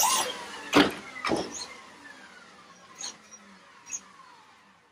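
Electric motor whine of an RC Lego Technic car running on a treadmill, gliding down in pitch as it winds down. Three sharp plastic knocks come in the first second and a half, and two faint clicks follow later.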